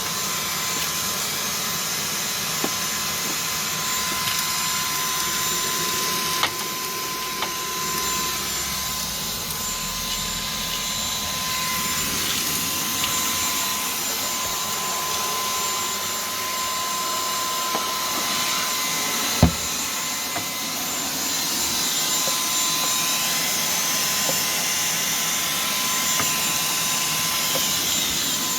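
WeClean 20V cordless vacuum cleaner running steadily with a thin whine, sucking up grit and pebbles from around a doormat. A few small clicks and one sharper knock about two-thirds through.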